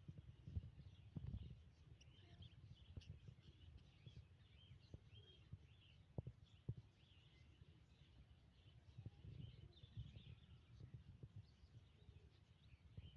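Faint chirping of many small birds: short high calls scattered throughout, over irregular low thumps and rumble.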